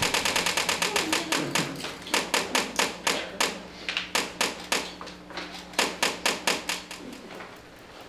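Fast, rhythmic electrical clicking, about five to eight clicks a second, from a flashing stroboscope light, its electromagnetic interference picked up by an electromagnetic pickup microphone and played through loudspeakers, over a steady electrical hum. The clicking speeds up and slows down and grows weaker near the end.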